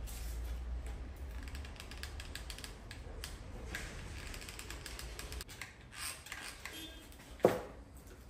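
Hot glue gun's trigger clicking rapidly as glue is fed out onto a plastic part. About seven and a half seconds in there is a single sharp knock as the glue gun is set down on the table.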